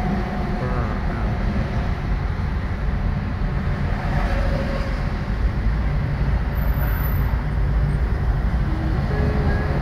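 Steady low rumble of a car driving in heavy highway traffic, heard from inside the cabin: engine and tyre noise with no sharp events.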